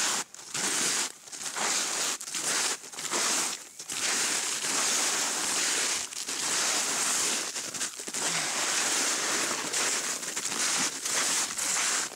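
Snowshoes crunching through crusty snow, step after step, with a short break between crunches at first and the crunches running almost together after about four seconds.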